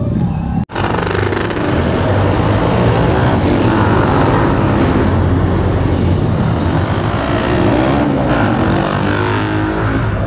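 Several motorcycle engines running and revving, their pitch rising and falling.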